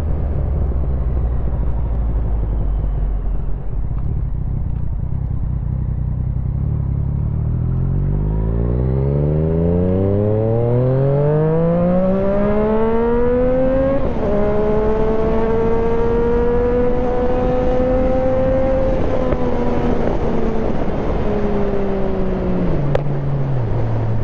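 Yamaha MT-09's three-cylinder engine on the move: running low and steady, then revving up for several seconds, dropping suddenly in pitch at a gear change, holding steady, and easing off as the bike slows near the end.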